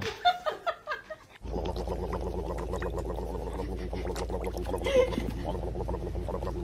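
A horse's lips flapping rapidly and wetly as a hand jiggles its muzzle, starting about a second and a half in, over a steady low hum. A few brief clicks come before it.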